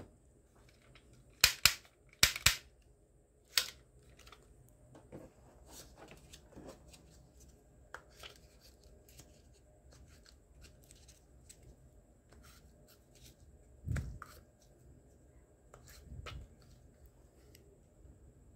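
Plastic clicks and rattles from handling a toy foam-dart revolver: a few sharp clicks in the first few seconds, then soft clicks and scrapes as foam darts are pushed into its cylinder, with a dull thump about fourteen seconds in.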